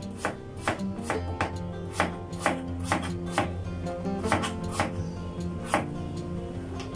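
Chef's knife slicing papaya on a plastic cutting board, a steady run of sharp strikes about twice a second. Background music plays underneath.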